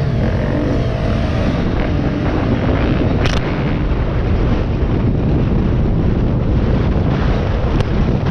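Off-road motorcycle engine running as the bike rides along a dirt trail, mostly buried under steady wind rumble on the helmet-mounted microphone. A short, sharp click about three seconds in and a fainter one near the end.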